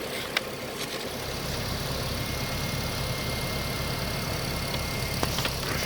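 Car engine idling steadily, an even low pulse with a few faint clicks over it.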